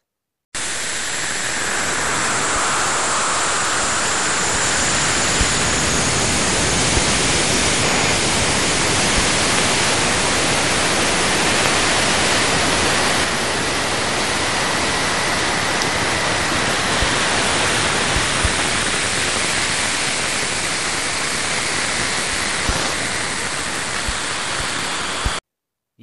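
Space audio presented as the sound of Saturn's rings (spacecraft radio data turned into sound): a steady rushing hiss like static, with a faint high whistle that slides down slightly in the first few seconds. It starts about half a second in and cuts off abruptly just before the end.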